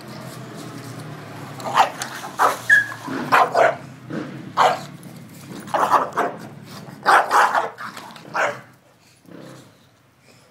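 Dogs barking in rough play, a dozen or so short barks in quick runs, then quiet near the end.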